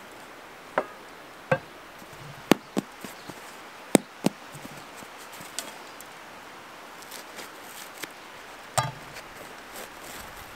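Stale, hard-crusted bread being torn apart by hand: the dry crust breaks with a string of sharp cracks, several coming in quick pairs, over faint outdoor background noise.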